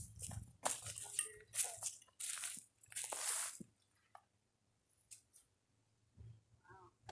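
Crunching and rustling, like footsteps through dry leaf litter, in a run of uneven bursts that stops about three and a half seconds in; after that only a few faint clicks.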